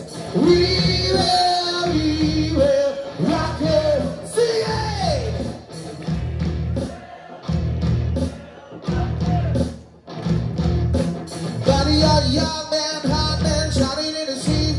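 Live band playing a rock song with singing over a heavy drum beat. About halfway through the music thins to sparse beats and drops briefly, then the full band comes back in.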